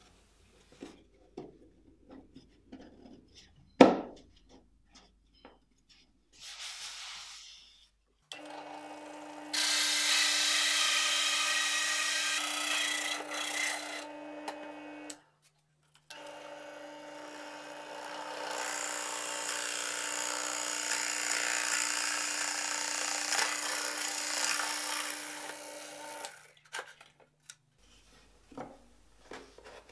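Drill press running with a hole saw boring through plywood: a steady motor hum under a harsh cutting noise, in two spells of several seconds each. Before it, wooden pieces are shifted on the table with one sharp knock; after it, light handling sounds.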